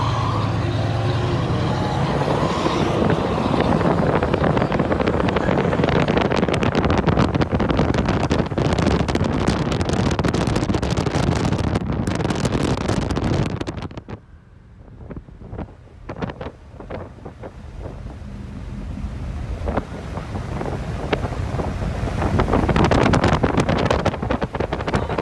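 Wind and road noise rushing past a 1980 Pontiac Trans Am moving at speed on a banked oval, heard with the camera at the open side window. The rush drops off sharply about fourteen seconds in, then builds back up to full over the last ten seconds.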